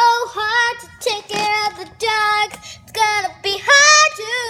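A child singing a tune in short phrases of held, gliding notes.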